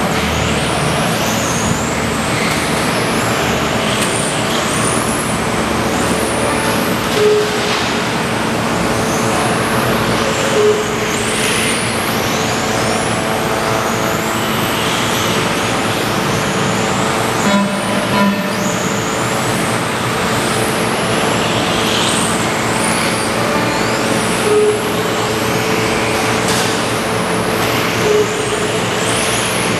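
Electric RC touring cars racing, their brushless motors whining and gliding up and down in pitch as they accelerate, brake and pass, several at once. A steady hum runs underneath, with a few short beeps now and then.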